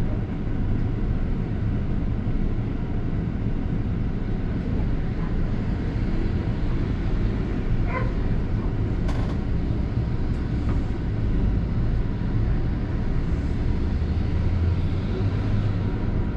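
A London double-decker bus in motion heard from inside the cabin: a steady low engine and road rumble, with a couple of light clicks or rattles near the middle and the low hum growing a little stronger near the end.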